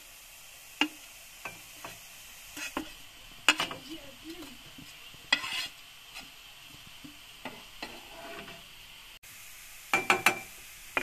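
Chopped greens sizzling in a hot non-stick frying pan while being stirred, with sharp scrapes and knocks of the wooden spatula and metal serving tray against the pan every second or two, and a quick cluster of knocks near the end.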